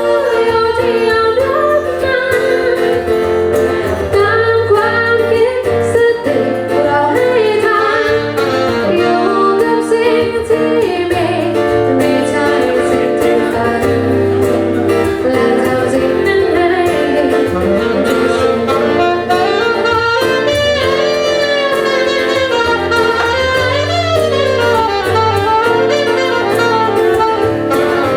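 Live band music: a lead melody played over guitar chords and a steady bass line.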